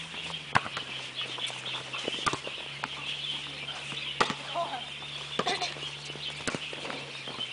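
Volleyball struck by players' hands in a practice rally: several sharp slaps, the loudest about every two seconds. A steady high-pitched chatter runs behind them.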